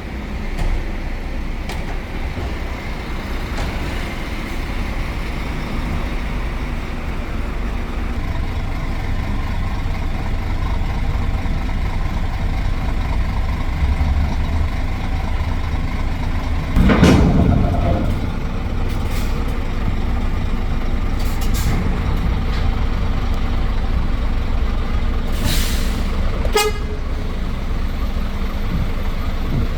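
Truck engine running steadily under way, heard from the cab as a deep rumble. A loud burst about a second long comes just past halfway, and a short hiss and a run of clicks come near the end.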